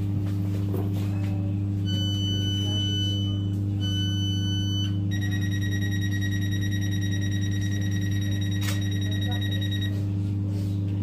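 A Class 319 electric multiple unit standing at a platform, its electrical equipment giving a steady low hum. Over the hum come two electronic beeps, about two and four seconds in, then a single steady warning tone held for about five seconds, with one sharp click partway through.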